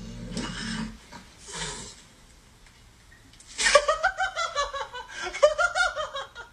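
A person laughing hard in rapid, high-pitched peals that start about three and a half seconds in. Before that come a few short breathy noises.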